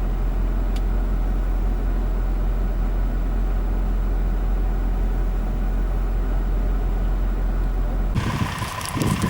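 Mercedes-Benz ML-Class SUV heard while driving: a steady, loud low rumble. About eight seconds in it changes abruptly to a different engine sound with uneven low pulses.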